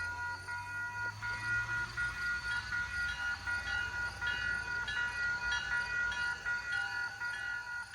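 Railroad grade-crossing warning bell ringing in a quick, even repeat, over the low steady rumble of a passing locomotive.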